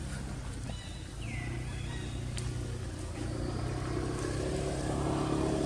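A motor vehicle's engine running, a steady low hum that grows louder toward the end. A brief high falling chirp sounds about a second in.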